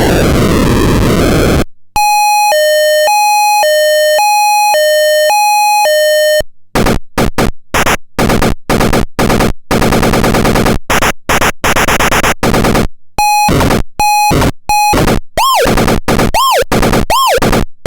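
Lineartec ZX-800 electronic sound effect box playing a run of its synthetic effects: a wobbling sweep, then a hi-lo two-tone siren about two seconds in, then a long stretch of rapid buzzy pulses, a few short beeps, and near the end a repeated sweeping zap about once a second.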